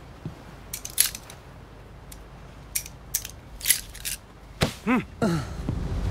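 A captive's restraints being unfastened: a series of sharp mechanical clicks and rattles, then two short squeals that rise and fall in pitch near the end.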